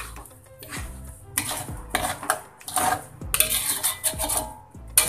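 Metal kitchen utensil scraping and clinking against metal cookware in irregular strokes, about one or two a second.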